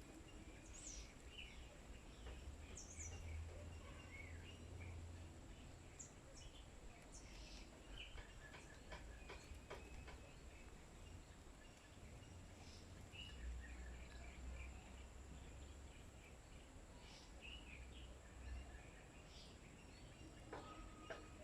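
Faint, scattered short bird chirps and calls from several birds over a steady low background rumble.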